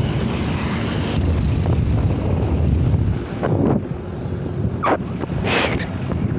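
Steady low rumble of wind buffeting a phone's microphone, with a few brief rustles from the phone being handled.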